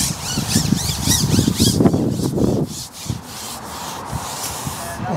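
Long carbon fishing pole sliding and rubbing as it is moved, in rhythmic strokes about four a second that stop about halfway through, leaving it quieter.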